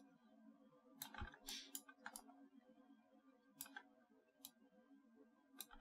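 About half a dozen faint computer mouse clicks at irregular intervals over a low, steady hum.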